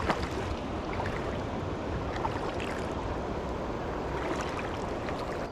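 Steady rush of flowing river water around a wader, an even hiss with a few small ticks and splashes.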